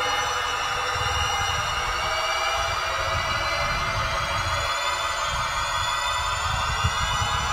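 Background film score: a dense, steady drone of many slowly gliding, siren-like tones over a low rumble.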